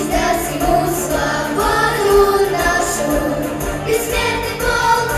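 Children's vocal ensemble of girls singing together into microphones over an instrumental accompaniment with a steady beat.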